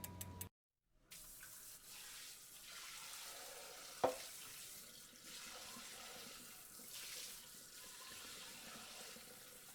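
WD-40 aerosol can hissing in long sprays onto a spinning bicycle chain, swelling and easing a few times, with one sharp click about four seconds in.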